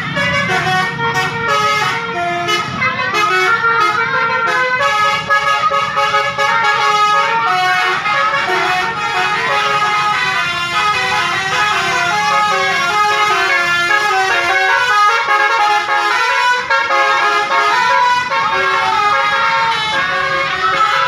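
Basuri 'telolet' musical air horn on a bus, playing a tune: loud stepped notes moving up and down in pitch, with several horn trumpets sounding together.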